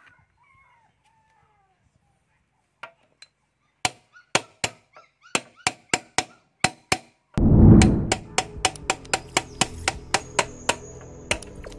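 Hammer striking a metal drift to tap a 6204 ball bearing into the front wheel hub of a Bajaj RE three-wheeler: sharp metallic blows, about three a second, starting about four seconds in. Background music comes in about halfway and runs under the strikes.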